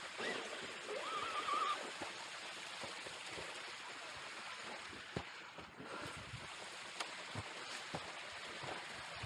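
Rushing water of river rapids, a steady hiss, with scattered faint clicks and knocks over it.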